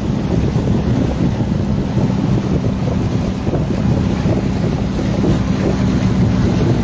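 Motorized wooden boat's engine running steadily under way, a constant low hum, with wind rushing over the microphone.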